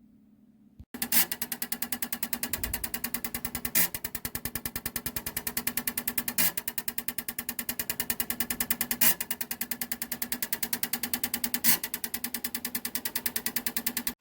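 Petrol fuel injectors from a Mitsubishi Lancer X 2.0 clicking rapidly and evenly as they are pulsed on an injector flushing stand, over a steady hum. The clicking starts suddenly about a second in, with a louder click about every two and a half seconds.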